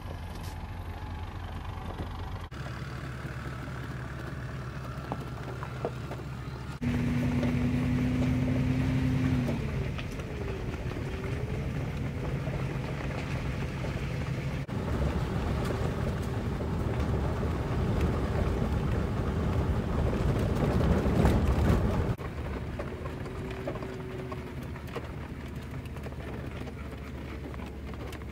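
Vehicle engine and road noise heard from inside the cab on a dirt and gravel road, a steady low rumble with hiss above it. The sound changes abruptly several times between cut-together clips, and it is louder from about seven to ten seconds in and again from about fifteen to twenty-two seconds in.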